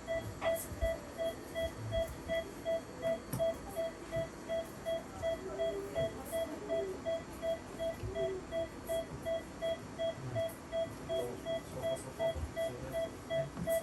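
Veterinary patient monitor beeping steadily, one short single-pitch beep about two and a half times a second, keeping time with the anaesthetised cat's pulse. Faint small knocks and handling noises come and go underneath.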